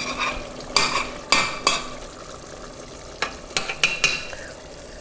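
Metal kitchenware clinking and knocking against a cooking pot of simmering stew: three sharp knocks in the first two seconds, then a quicker run of four about three seconds in, each with a short metallic ring.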